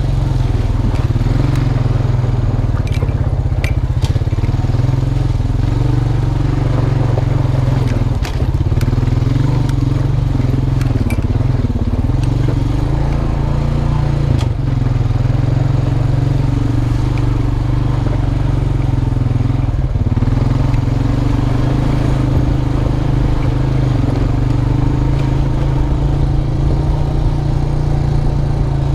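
2002 Honda Rancher 350 4x4 quad's single-cylinder four-stroke engine running at a fairly steady pace while riding off-road, with a few sharp clicks and knocks from the terrain.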